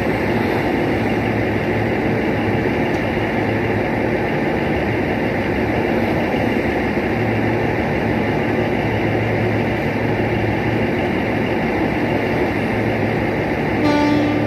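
Passenger coaches of an arriving express train rolling past a platform: a steady rumble and rattle of wheels on rail and coach bodies. Just before the end a train horn starts sounding, louder than the rolling noise.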